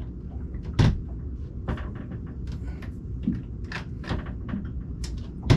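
Boat cabinet door being pushed shut and opened on its newly fitted latch: a series of knocks and clicks, the loudest about a second in and near the end. The latch is hitting and not catching, which the owners put down to it being mounted slid over too far.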